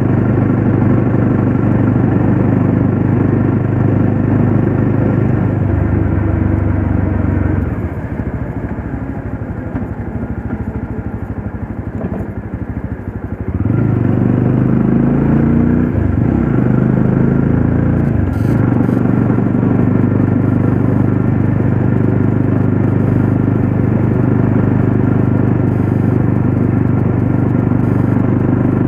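Classic Legends Yezdi Roadster's single-cylinder engine running at a steady cruise, heard from the rider's seat. About six seconds in the engine note drops and the sound goes quieter, then picks back up to full level about halfway through.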